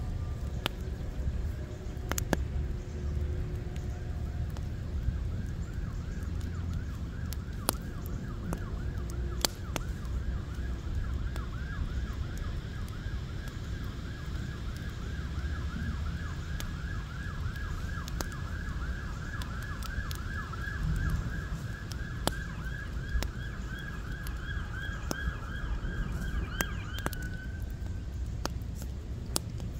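Wood fire in a fire pit crackling with scattered sharp pops over a low rumble. From about a third of the way in until near the end, a distant siren warbles in quick, even cycles at a steady pitch, then cuts off.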